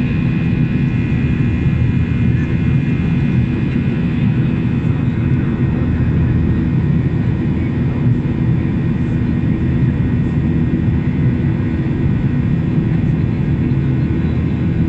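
Steady drone of a Boeing 737-800's CFM56-7B jet engines, a constant low rumble with a few steady tones in it. A faint high tone fades out in the first few seconds.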